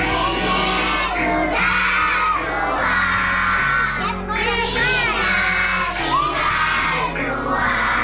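A large group of schoolchildren singing a Malay children's song together over a backing track with a steady bass line.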